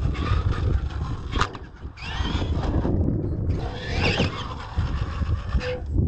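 Electric R/C monster truck motor whining up and down in pitch as the throttle is worked. A sharp clatter about a second and a half in is the truck landing a jump. A steady low rumble runs underneath.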